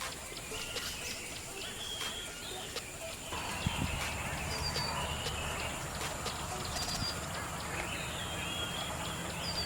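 Birds chirping and calling in short, repeated high notes over a steady background, with a low hum coming in about three seconds in.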